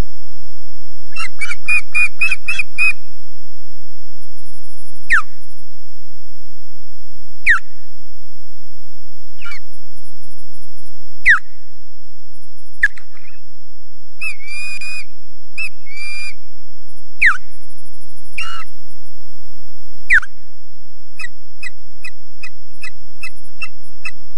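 Osprey giving alarm calls while defending: three quick runs of high chirping whistles, one near the start, one in the middle and one near the end, with about seven single sharp calls sliding steeply down in pitch between them.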